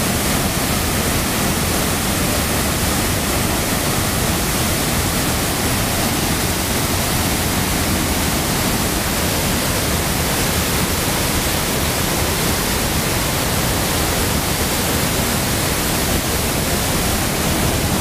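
Waterfall's falling water: a loud, steady rushing that does not change.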